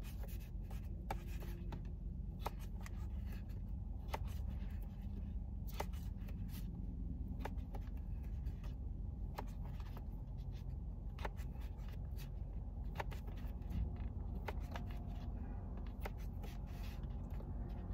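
Small knife slicing turkey sausage on a paper plate: short sharp ticks as the blade goes through and meets the plate, unevenly spaced about once a second, over a steady low hum.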